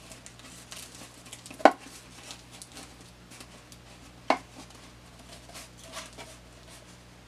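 Rolled aluminium foil being wound around a cardboard paper towel tube by hand: faint crinkling and rustling, with two sharp knocks, one just under two seconds in and a second past four seconds.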